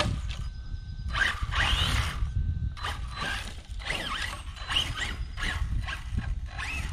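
Arrma Kraton RC truck's brushless motor and drivetrain whining in a run of short throttle bursts as it crawls slowly over rough ground. The pitch rises and falls with each burst, about one to two a second, over a steady low rumble.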